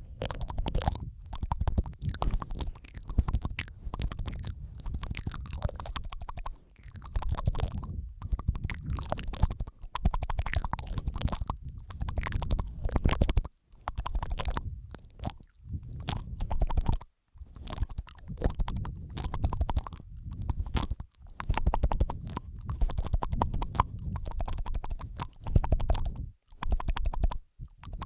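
Close-miked ASMR mouth sounds, layered: a dense, continuous stream of wet clicks, smacks and licking noises with a low rumble. It breaks off briefly a few times.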